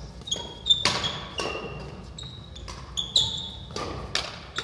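Badminton doubles rally: rackets striking the shuttlecock in sharp cracks roughly a second apart, the loudest about a second in and near the end. Court shoes squeak on the wooden floor between the shots.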